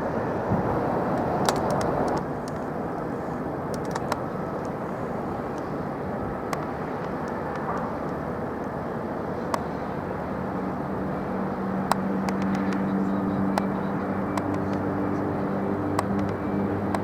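Steady rumble of airport traffic, jet aircraft and vehicles, with scattered sharp clicks; about ten seconds in, a low steady hum joins.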